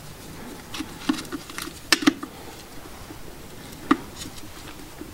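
A screwdriver driving a small screw into a Land Cruiser 80 series alternator, with irregular light clicks and taps of the tool and parts. The sharpest click comes about two seconds in and another about four seconds in.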